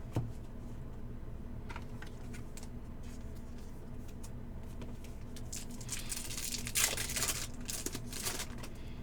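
Plastic foil trading-card pack wrapper crinkling and tearing for about three seconds in the second half, after a single knock at the start and a few light clicks.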